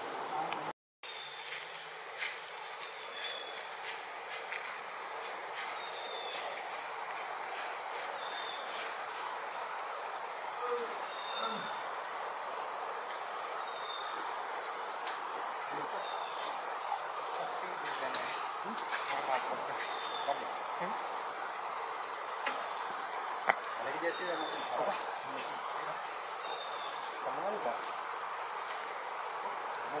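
Steady, high-pitched drone of a rain-forest insect chorus, with short faint chirps repeating every second or two over it. The sound drops out for a moment about a second in.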